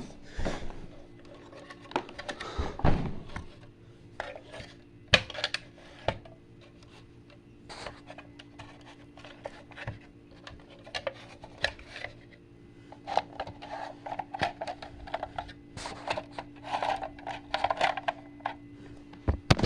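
Scattered clicks, knocks and rubbing of plastic and metal fire alarm devices being picked up and turned over by hand, busiest in a run of rattling near the end, over a faint steady hum.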